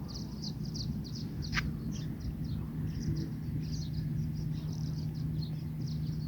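Birds chirping busily in quick, irregular short notes, over a steady low hum of an idling car engine.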